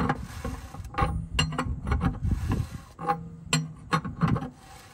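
Wrench turning the oil pan drain plug back into a 1958 Ford 871 Powermaster tractor, giving a string of irregular metal clicks and scrapes as the plug is threaded in and snugged up.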